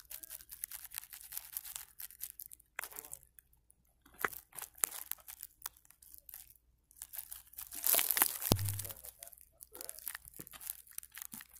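Intermittent rustling and crackling close to the microphone, with one short, low thump about eight and a half seconds in.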